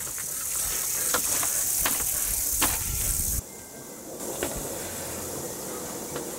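Porcupines' quills rattling and clattering as they bristle and ram a stuffed toy, a steady hissing rustle with a few sharp clicks. It drops suddenly about three and a half seconds in, then partly returns.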